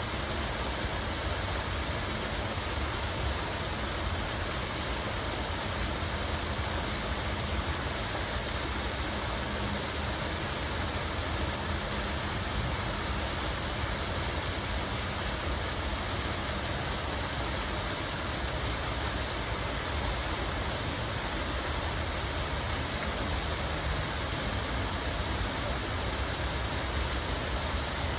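Water flowing and splashing steadily, a constant rushing noise with a low rumble underneath.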